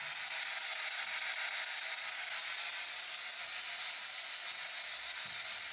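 P-SB7 ghost box (spirit box) sweeping radio frequencies, putting out a steady static hiss.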